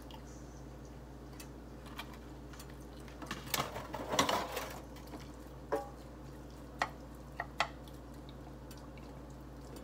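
Scattered light clinks and taps of dishes and utensils being handled, with a longer rustling scrape about four seconds in, over a steady low hum.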